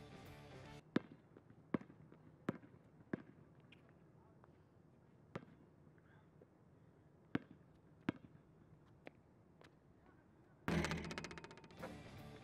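A basketball bouncing on the court in sharp, scattered smacks: four about three-quarters of a second apart, then a few more spaced out. Music comes back in near the end.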